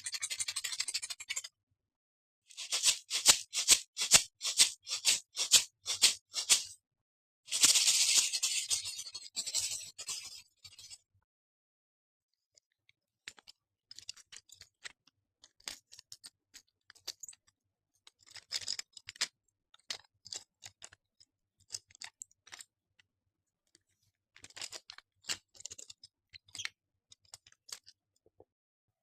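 Small household objects handled close to the microphone: a short scraping hiss, a run of quick sharp clicks, a second scraping hiss, then scattered fainter clicks and ticks.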